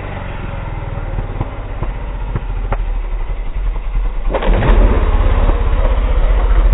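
Motocross dirt bike engine running and revving, a rapid run of firing pulses with scattered sharp cracks; it gets much louder about four seconds in.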